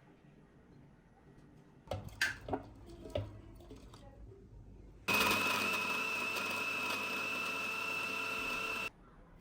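A few light knocks and clatters, then a small electric kitchen appliance motor runs steadily for about four seconds with a steady high whine, switching on and off abruptly.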